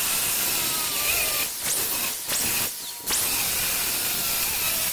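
Corded angle grinder running with its disc cutting into steel plate. Its sound drops briefly a few times as the disc eases off the metal.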